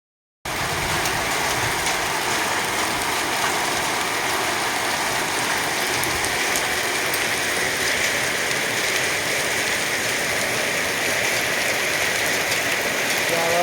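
Heavy rain mixed with hail falling, a steady even downpour with a few faint sharp ticks of hailstones striking.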